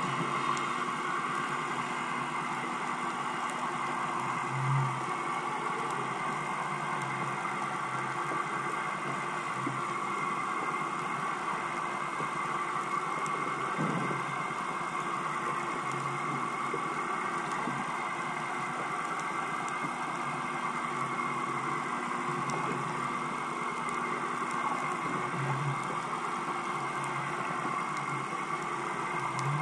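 Boat engine running steadily, heard underwater through a camera housing as a constant hum with fixed tones over a hiss. A few soft low thumps stand out, one about five seconds in and another near the end.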